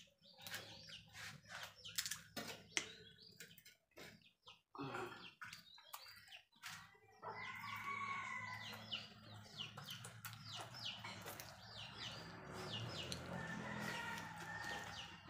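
Chickens clucking and calling, faint, with many short high peeps over them from about halfway on; sharp clicks in the first half.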